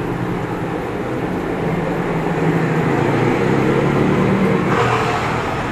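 Steady low hum of a motor vehicle engine in passing traffic, growing a little louder through the middle and easing off near the end.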